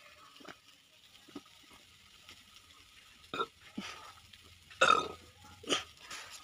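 A man swallowing a drink in a few faint gulps, then burping several times, the loudest burp about five seconds in.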